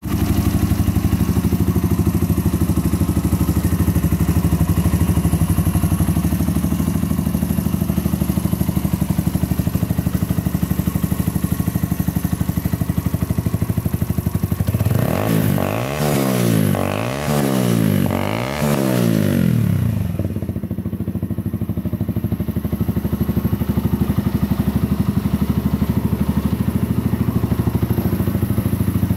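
Mutt Fat Sabbath's air-cooled single-cylinder engine idling steadily. About halfway through, the throttle is blipped about four times in quick succession, and the engine then settles back to idle.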